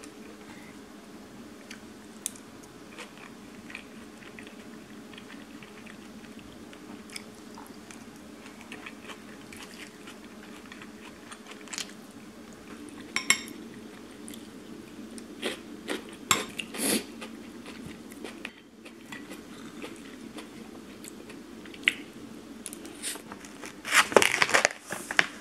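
A metal spoon clinking and scraping on a ceramic plate during a meal of fried rice, with scattered sharp clicks over a low steady hum. Near the end, a plastic snack bag crinkles as it is handled and opened.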